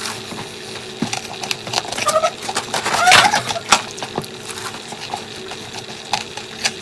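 Ice being bitten and crunched close to the microphone: irregular crisp cracks and crunches, loudest about three seconds in.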